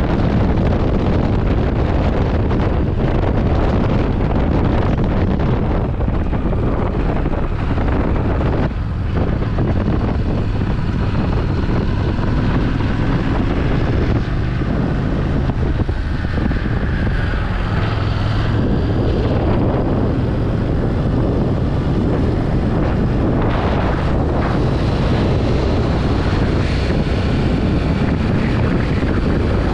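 Motorcycle riding along at road speed: heavy wind rush on the camera microphone over a steady engine note, which shifts pitch slightly partway through.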